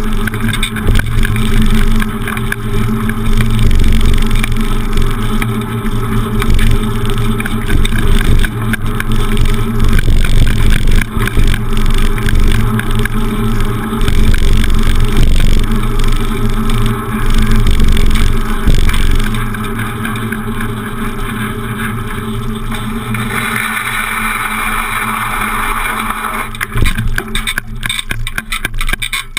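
Wind buffeting the microphone of a handlebar-mounted camera, with tyre and frame noise from a beach cruiser bicycle riding along a city street. Near the end the bike rattles briefly over cobblestones.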